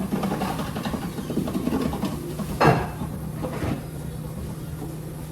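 Household items being handled: irregular clattering for the first two seconds, then one loud knock about two and a half seconds in, over a steady low hum.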